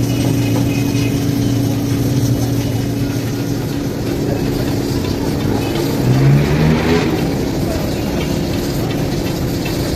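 Street traffic: a motor vehicle engine hums steadily over a haze of road noise, and one engine revs up, rising in pitch, about six seconds in.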